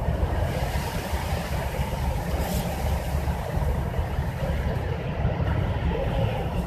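Mother cat purring steadily while nursing her kittens, a continuous low rumble.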